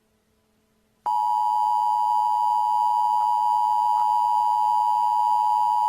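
About a second of near silence, then the Emergency Alert System attention signal starts abruptly. It is a steady, unchanging two-tone sound, the standard 853 Hz and 960 Hz tones played together.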